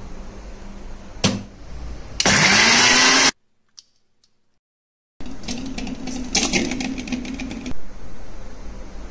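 Electric mixer grinder running with fresh coriander and chat masala in its steel jar, grinding green chutney. It runs loudly for about a second, its motor pitch rising as it spins up, then stops abruptly; a click comes just before.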